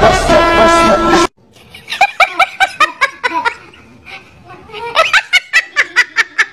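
Music that cuts off abruptly about a second in, then a woman laughing hard in quick, high-pitched 'ha-ha-ha' bursts of about six a second, in two fits separated by a short pause.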